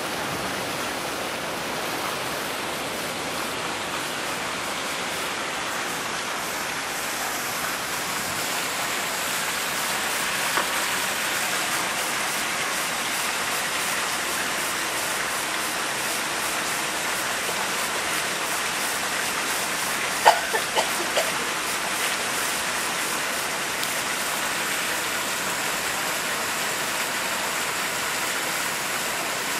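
Steady hiss of water pouring from a pool's wall fountain and splashing into the pool, with a few brief knocks about two-thirds of the way through.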